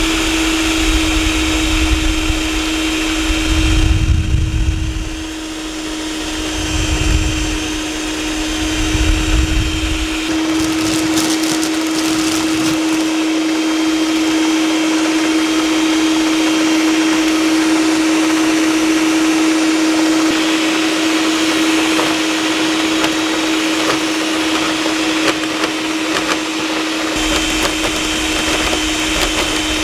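Electric stand mixer running steadily, its beaters whirring through butter-and-egg cake batter, with a few low rumbles in the first ten seconds.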